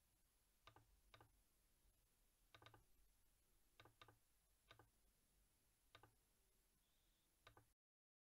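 Faint computer mouse clicks, about nine, some in quick pairs like double-clicks, over quiet room tone; the sound cuts to dead silence near the end.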